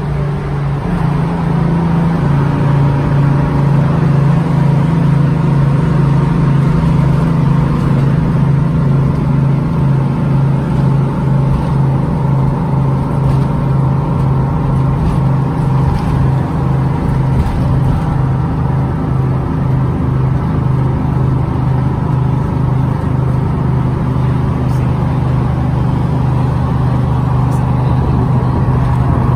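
Steady running of a 1957 GMC transit bus's two-stroke diesel engine, heard from inside the bus while it cruises on a highway, with road noise under it. Its low note drops a little about a second in, then holds.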